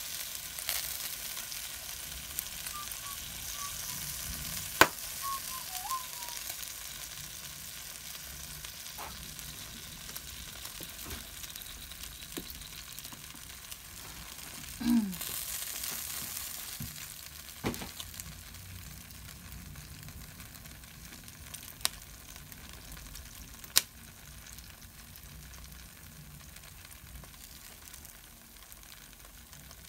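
Marinated pork belly skewers sizzling on an electric grill, a steady hiss broken by a few sharp ticks and pops. The sizzle grows fainter toward the end.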